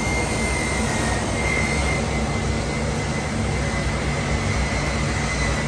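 Steady din of factory machinery: a low hum with a thin high whine held on top, unchanging throughout.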